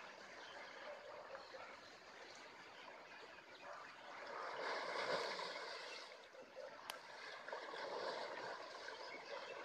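Faint running water, like a stream, swelling louder around the middle, with one brief sharp tick about two-thirds of the way through.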